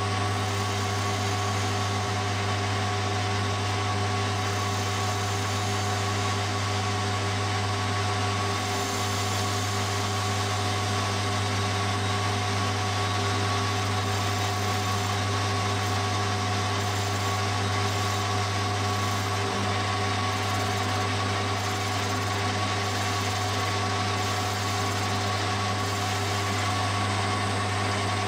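Metal lathe running at a steady speed with a cast crankcase and its fixture bolted to the faceplate: a constant low hum with a few steady higher tones while a tool turns the end of the cast venturi.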